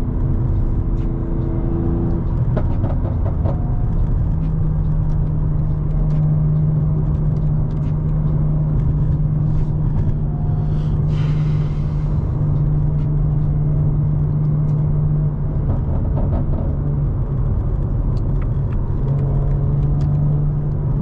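BMW M3 (G80) running at a steady cruise, heard from inside the cabin: a low, even drone from its S58 twin-turbo straight-six together with tyre and road rumble. A short rush of noise comes about halfway through.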